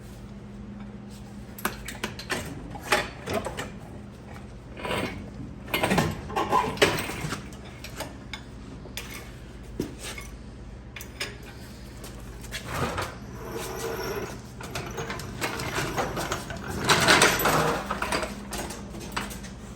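Metal clanking and rattling of hand tools and car parts being handled, in irregular knocks with a louder spell near the end, over a steady low hum.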